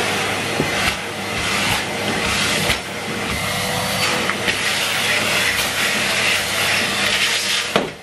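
Numatic Henry Turbo cylinder vacuum cleaner running, its motor hum and suction hiss rising and falling a little as the hose nozzle is worked along the floor edge, with a few brief knocks. The sound drops sharply just before the end.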